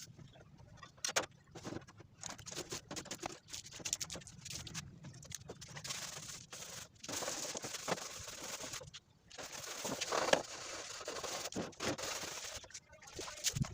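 Irregular scraping, tapping and rustling, with scattered sharp clicks and a few louder knocks.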